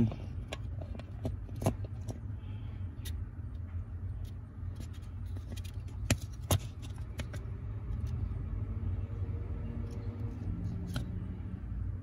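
Light clicks and taps of two plastic brake light switches being handled, a few sharp ones standing out, over a steady low background rumble.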